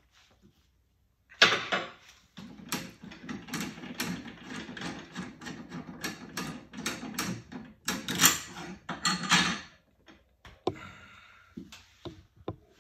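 Plated steel parts of a Hurst shifter carrier clicking and clattering against each other and the bench vise as they are fitted together by hand. A dense run of clicks and rattles starts sharply about a second and a half in and thins to a few scattered clicks near the end.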